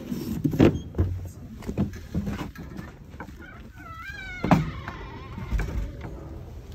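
Several knocks and clatters, then a short wavering high-pitched squeal about four seconds in, followed by a sharp knock.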